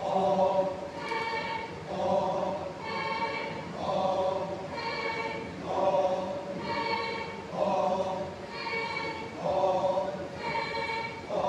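Group of voices singing a Lotha Naga folk dance chant. Lower and higher phrases alternate in a steady repeating rhythm, one cycle about every two seconds.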